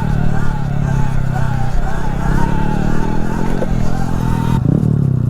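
Small motorcycles being ridden: a steady engine drone with wind and road noise. The wind noise drops off about four and a half seconds in.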